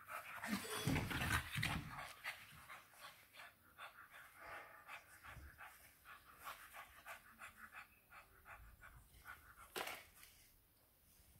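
English bulldog puppies panting with rapid, noisy breaths, loudest in the first couple of seconds. A single sharp sound comes near the end.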